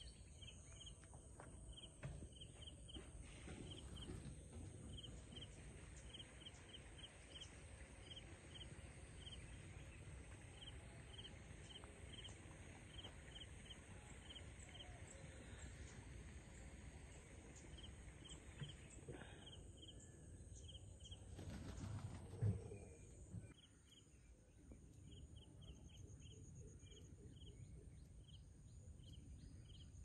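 Faint outdoor background noise with a series of short high chirps, a few a second, that pause now and then, and a brief low rumble about two-thirds of the way through.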